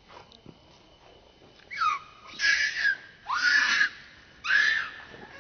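Infant macaque screaming in four harsh, loud cries, each about half a second long, while its mother grabs and pulls it by the limbs. These are distress screams.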